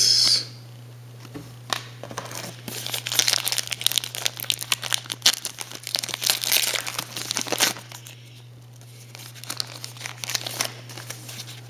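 Foil wrapper of a Topps Allen & Ginter baseball card pack crinkling and tearing as it is pulled open by hand, dense for several seconds, then lighter rustles near the end.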